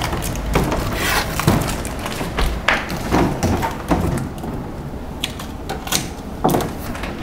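Irregular knocks, taps and short rasping noises as a glass-door display refrigerator is handled and taped up with packing tape for moving.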